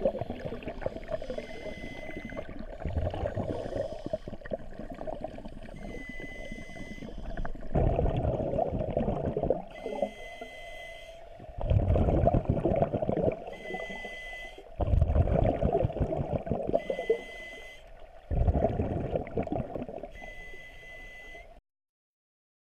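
Scuba diver breathing through a regulator, heard underwater through the camera's housing: each inhale draws a faint whistling hiss, and each exhale releases a loud rush of bubbles, about every three to four seconds. The sound cuts off abruptly near the end.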